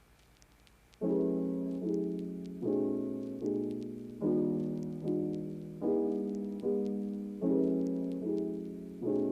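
Background music: soft piano chords, each struck and left to fade, repeating at an even pace, coming in about a second in.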